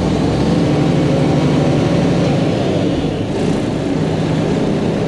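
Tri-axle dump truck's diesel engine running steadily, with the PTO-driven hydraulic hoist engaged and the dump bed raised.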